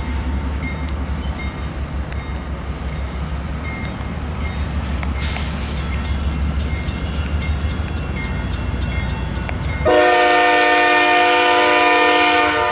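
Diesel freight locomotive approaching with a low rumble, then about ten seconds in its multi-chime air horn sounds one long blast of about two and a half seconds for the grade crossing.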